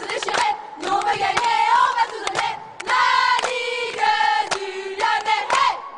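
A group of young voices singing a chant together, with sharp claps struck in between.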